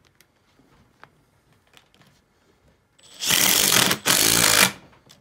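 Makita XDT14 brushless impact driver on full speed hammering a blue concrete screw into a concrete block: a loud, rapid impacting rattle starting about three seconds in, lasting just under a second, then after a very short break a second burst of just over half a second.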